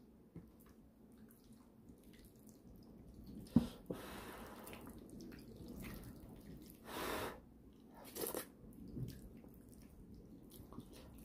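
Braised pork trotter being torn apart by hand in its gravy: soft tearing and squelching of meat and skin. There is a sharp click about three and a half seconds in, and a few short louder bursts later on.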